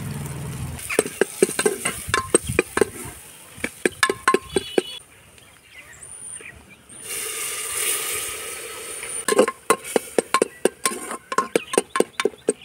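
Metal slotted ladle stirring in an aluminium pressure-cooker pot, knocking and clinking against its sides in quick runs of strikes. About seven seconds in, the frying masala sizzles loudly for a couple of seconds.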